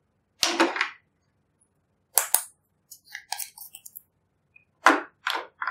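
A small plastic bottle of blue glitter handled and tapped over clear slime: a string of sharp clicks and taps, ending in three taps as the glitter is shaken out onto the slime.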